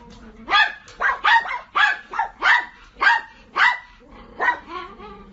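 A dog barking over and over: about ten sharp barks, roughly half a second apart.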